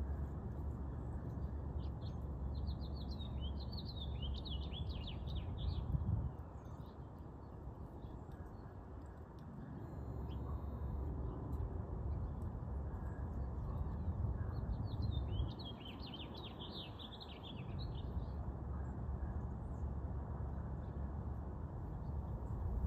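A songbird singing two songs about ten seconds apart, each a rapid run of high chirping notes lasting three to four seconds, over a steady low rumble.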